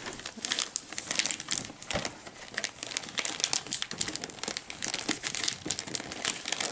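Glossy gift-wrapping paper on a box crinkling and tearing as a small child's fingers pick and pull at it: a dense run of quick, uneven crackles and rustles with short rips.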